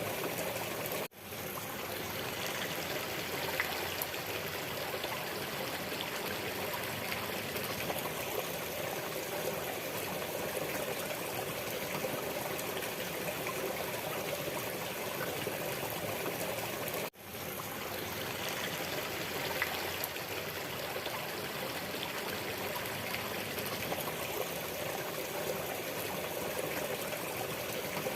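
Waterfall water rushing and splashing in a steady, even wash. The sound cuts out for an instant twice, about a second in and again about seventeen seconds in, and swells straight back.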